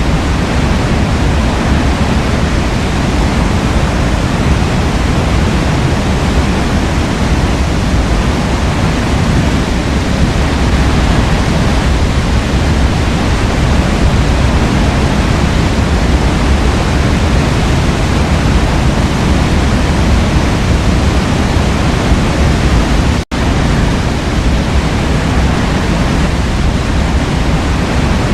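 Waterfall: a steady, dense rush of falling water, heaviest in the low end. It cuts out for a split second late on, where the recording is spliced.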